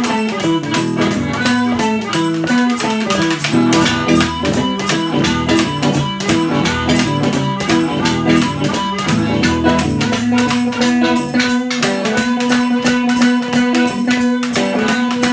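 Chicago blues instrumental: guitar playing a riff over a steady scraped washboard rhythm. A long note is held from about ten seconds in.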